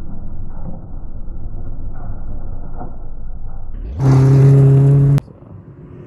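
Subaru Impreza WRX STI rally car's turbocharged flat-four engine at full throttle on a gravel stage. A low, muffled rumble gives way about four seconds in to a loud, steady engine note held for about a second. The note cuts off abruptly.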